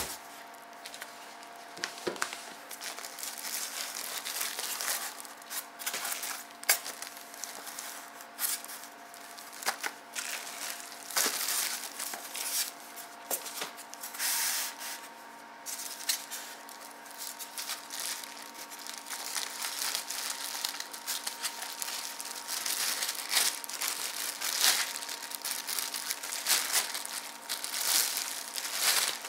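Clear plastic wrapping crinkling and rustling in irregular bursts, with sharp crackles, as it is handled and pulled off a boxed movie camera. A faint steady hum lies underneath.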